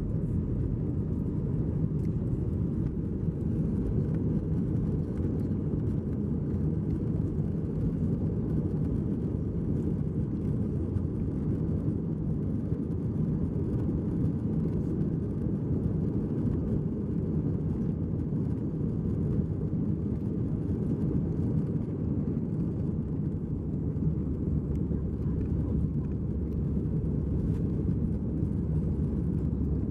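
Airbus A320-214 cabin noise during the climb just after takeoff: its CFM56-5B turbofan engines at climb thrust and the rushing air give a steady, low noise, heard from inside the cabin.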